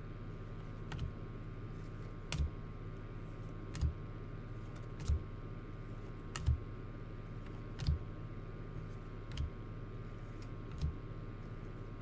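A series of light clicks or taps, evenly spaced about every second and a half, over a steady low hum.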